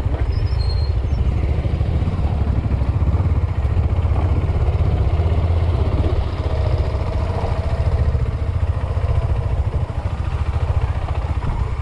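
Motorcycle engine running steadily while the bike is ridden slowly along a dirt track, a low, even engine note throughout.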